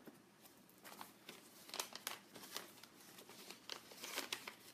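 Paper rustling and crinkling as a small white card and paper envelope are handled and folded, with scattered light clicks.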